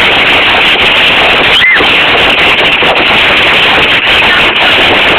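Hail pelting down: a loud, dense, unbroken clatter of countless small impacts.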